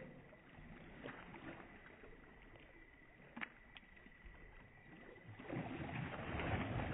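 Water sloshing and splashing as swimmers move their arms in a swimming pool, faint at first and growing louder about five and a half seconds in.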